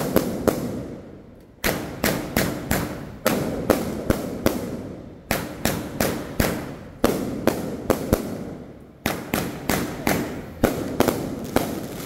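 Fireworks set off in volleys, about every one and a half to two seconds. Each volley is a sharp bang followed by several quicker cracks that die away.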